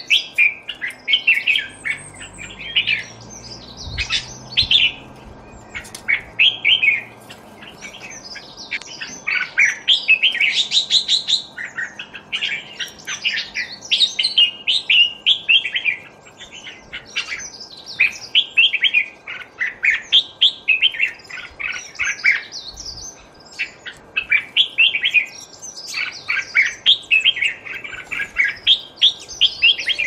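Several small songbirds chirping and twittering in dense, overlapping runs of short high calls and trills, with no pause.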